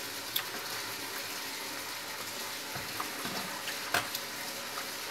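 A little borax solution being added to homemade slime: a faint, steady wet hiss with a couple of soft clicks.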